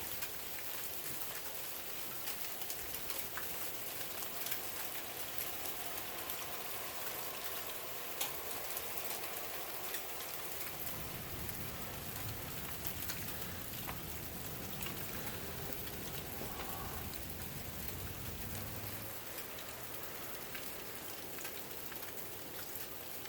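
Sleet pellets falling and ticking on surfaces: a steady, dense patter of tiny clicks. A low rumble joins about halfway through.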